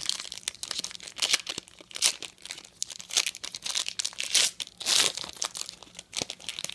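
A trading-card pack wrapper crinkling and tearing as the pack is opened and the cards handled: a run of short, sharp rustles with a few louder crackles.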